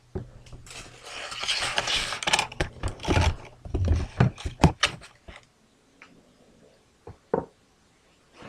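Rubbing and rustling with a quick run of clicks and knocks for about four seconds, then a few separate clicks near the end: the recording device being handled and moved about.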